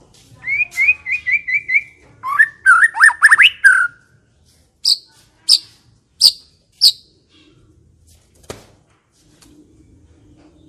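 White-rumped shama (murai batu) singing: a run of six quick rising whistled notes, then a fast phrase of swooping notes, then four sharp high notes about two-thirds of a second apart.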